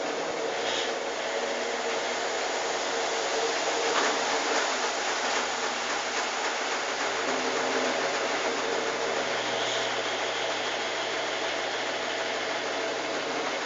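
Consul washing machine running its intermediate spin, a steady motor and drum hum, with a few brief knocks, one about four seconds in, which the owner puts down to the drain hose banging.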